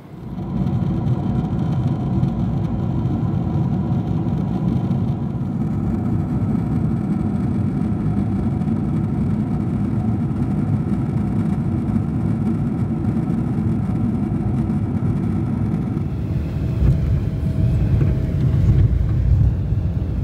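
Jet airliner cabin noise: the steady roar of the engines and airflow heard from a window seat, with a faint steady hum. Near the end it grows louder during the landing roll on the runway, spoilers raised.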